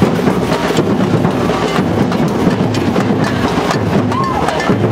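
Street percussion playing a fast, steady rhythm of dense clattering hits over a low drum tone.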